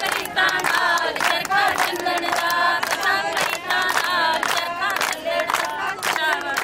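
A group of women singing a Punjabi folk song together, Teeyan style, with sharp hand claps falling every fraction of a second through the singing.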